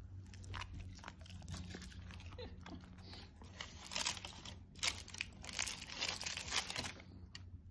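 German Shepherd chewing and crunching a piece of crumbed chicken schnitzel, a run of crisp crunches and smacking clicks that grows louder and denser about four seconds in and eases off near the end.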